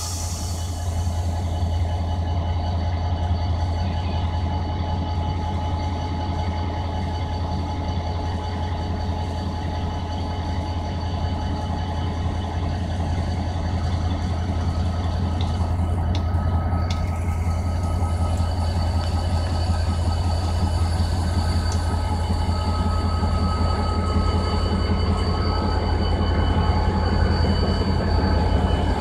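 EMD GT22CW diesel-electric locomotive's two-stroke diesel engine running with a steady low drone as the train starts to depart, slowly growing louder as the locomotive begins to move past.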